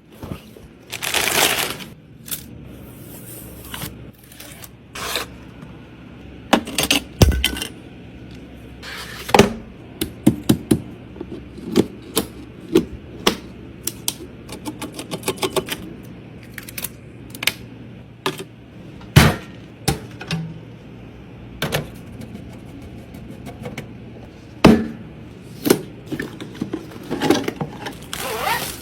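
Computer parts being handled and fitted together: scattered sharp clicks, taps and short scrapes of plastic and metal, over a faint steady low hum.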